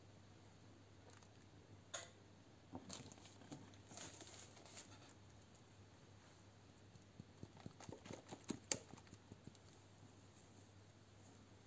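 Faint crumbling and rustling of moist potting mix as fingers dig rooted grape cuttings out of a plastic tub, with small ticks and taps against the plastic. The sounds come in two scattered clusters, with the sharpest tap a little after the middle.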